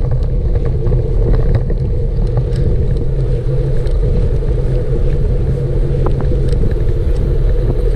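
Wind buffeting the camera's microphone as a minivelo bicycle is ridden fast, a loud, steady rush with a low rumble and a few faint ticks.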